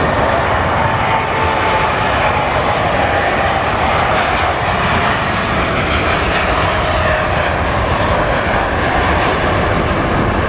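Large jet airliner's engines at takeoff power as it rolls and lifts off, a loud steady jet noise with a whine that slowly falls in pitch.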